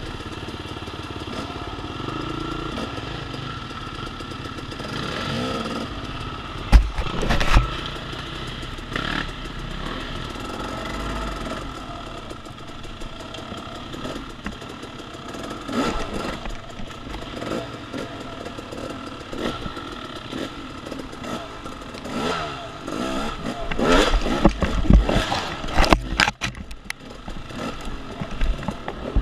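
Off-road dirt bike engine running on a woods trail, with a steady drone and irregular knocks and clatter. The knocks are loudest about seven seconds in and again over a rough stretch around twenty-four to twenty-six seconds.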